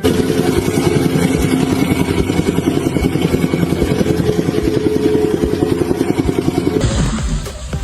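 A motor-driven machine running with a fast, even pulse, changing abruptly about seven seconds in.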